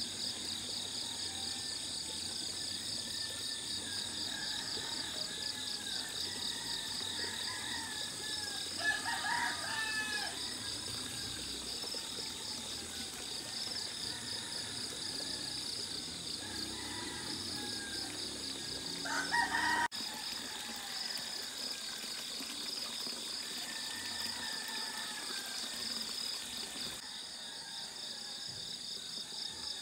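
Insects keep up a steady, pulsing high chirr throughout, under scattered bird calls. A rooster crows twice, about nine seconds in and again near the middle: the loudest sounds.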